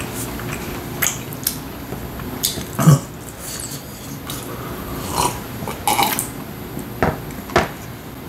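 Close-up eating sounds: chewing and lip smacks with scattered small clicks, and the man drinking water from a glass. The loudest is a short, low throaty sound about three seconds in.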